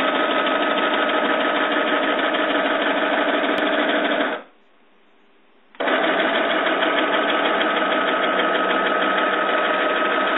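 A stepper motor drives 3D-printed spur gears and a threaded rod, moving a small CNC machine's bed at high speed. It runs with a steady whine, stops about four and a half seconds in, and starts again about a second and a half later on the return move.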